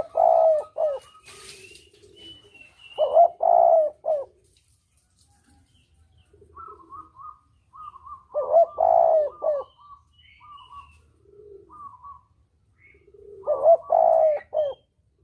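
Spotted dove (tekukur) cooing: four loud coo phrases a few seconds apart, with softer short notes and lower coos between them.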